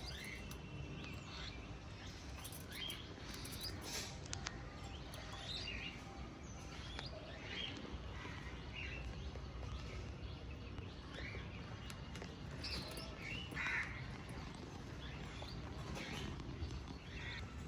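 Small pet parrots chirping: many short, scattered chirps, with a few sharp clicks about four seconds in and a steady low background rumble.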